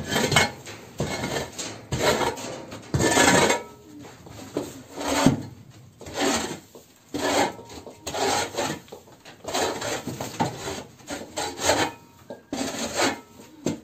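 Metal shovel scraping across a plank floor in repeated strokes, roughly one a second, clearing litter and hay.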